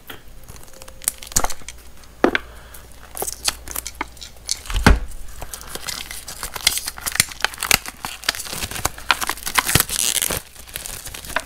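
Clear plastic shrink-wrap being torn and peeled off a small cardboard product box, crinkling with many sharp little crackles. There is one louder knock about five seconds in.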